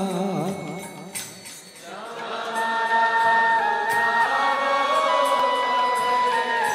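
Background devotional song to Radha and Krishna, sung in a chanting style. A wavering sung note opens it, the music thins briefly about a second and a half in, then long held notes return.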